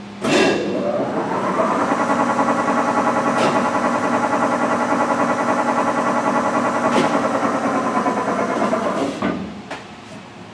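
The spindle drive of a Tuda Jumbo 1250/4000 engine lathe with a 30 HP motor starts up, rising in pitch over about a second and a half as the large four-jaw chuck runs up to speed. It then runs steadily with a multi-toned gear whine and cuts off about nine seconds in.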